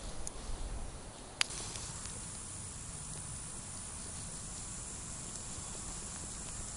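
Steady outdoor background noise on open ice, a low rumble under a hiss, with a few small knocks in the first second and one sharp click about a second and a half in.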